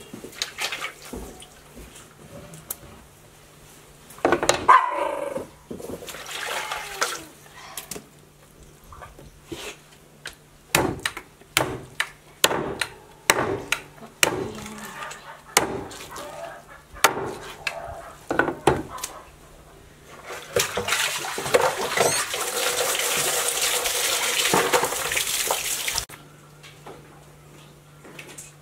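Scattered kitchen knocks and clatters, then water running steadily for about five seconds, cutting off suddenly near the end.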